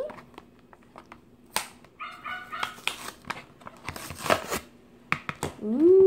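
Plastic packaging crinkling and tearing as a slime package is opened by hand, with scattered clicks and rustles of handling; the loudest tearing comes about two thirds of the way in. Near the end a long, high-pitched whine rises and then holds.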